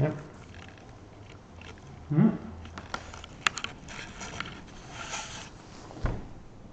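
Rustling, crackling and clicking handling noise close to the microphone, with a brief murmured voice sound about two seconds in and a dull knock about six seconds in.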